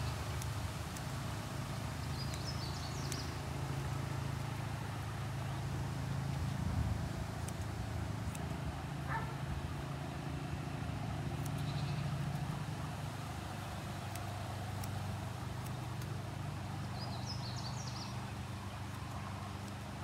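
A steady low motor hum throughout, with a few high bird chirps twice, and faint clicks.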